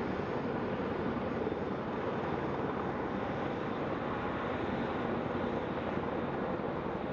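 Several AH-64 Apache attack helicopters running and lifting off, their turbines and rotors making a steady rushing drone.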